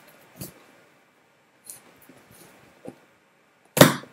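A knife blade scraping and jabbing into a taped cardboard box: a few faint scrapes, then one loud thud near the end as the blade is forced into the box.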